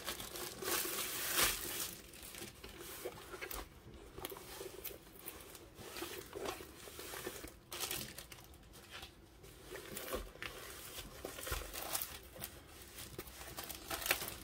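Clear plastic sleeve crinkling and rustling as a rolled diamond painting canvas is slid out of it and unrolled, the canvas's plastic cover film rustling too. The rustling is loudest in the first two seconds, then comes in short irregular bursts.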